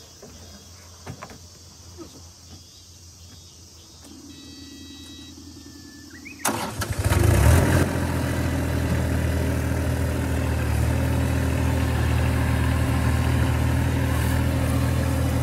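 Mini excavator's diesel engine starting up about halfway through, louder for the first second or so, then running steadily.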